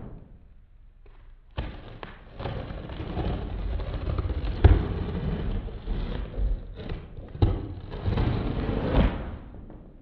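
Scraping and rustling as a knife slits the packing tape on a cardboard shipping box, with a couple of sharp knocks against the box. It starts after a quiet second and a half.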